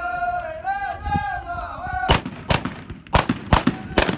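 Men singing a chant together in unison. About halfway through, the singing gives way to loud, sharp hand claps from the line of men, clapping in unison in an even beat of roughly two to three claps a second.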